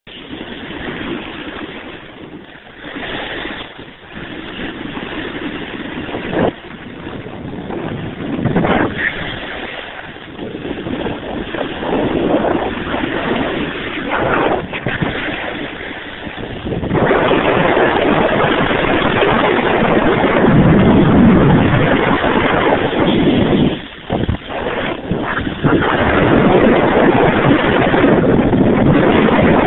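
Wind buffeting the microphone and the rush of snowboards sliding over packed snow: a continuous noise that grows louder and denser about 17 seconds in.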